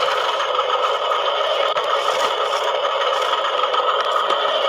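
Plastic toy dump trucks rolling and scraping over gravel: a steady, dense rattle of hard plastic wheels and bodies on small stones.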